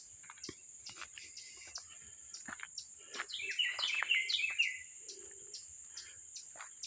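A rapid burst of high chirping notes, about a second and a half long, partway through, typical of an eastern chipmunk's squeaking chatter, over a steady high drone of insects.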